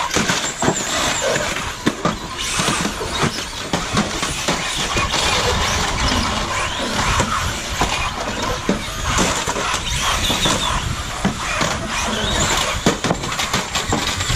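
Radio-controlled demolition-derby cars driving on a concrete pad: tyres squealing and scrubbing, motors running, and many short knocks as the plastic-bodied cars crash into each other.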